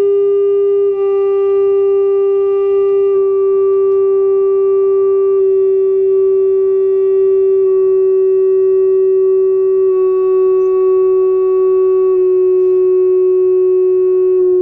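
Steady electronic tone with overtones from a loudspeaker driving a Kundt's tube, fed by a function generator. The tone drops a small step in pitch about every two seconds as the generator is stepped down 5 Hz at a time from 200 Hz to 170 Hz, sweeping the tube through its resonances.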